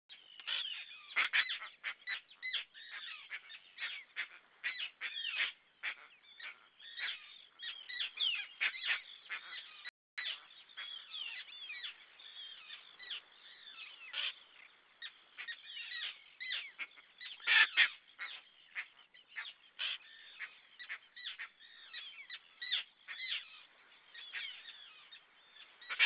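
A big flock of birds calling without pause, many short calls overlapping, with a louder burst of calls about two-thirds of the way through.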